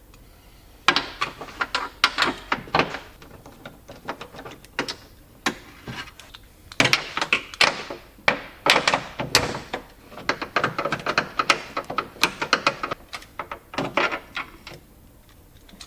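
Hand tools working on rear trim and taillight fasteners: clusters of rapid clicks and sharp knocks, with short pauses between them.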